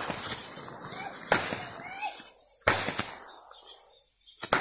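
Consumer aerial fireworks going off: about six sharp bangs at uneven intervals, each dying away quickly.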